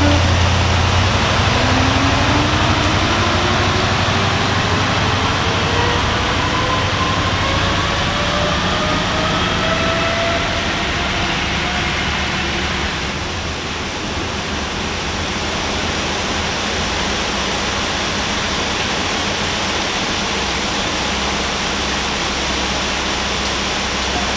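Diesel track maintenance vehicle pulling a wagon of sleepers, its engine whine rising steadily in pitch for about ten seconds as it gathers speed, over a steady hiss.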